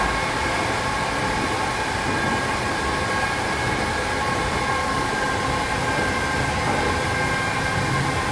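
Ganz-Mávag metro railcar running between stations, heard from inside the car: a steady rumble of wheels on rail with a steady whine held over it.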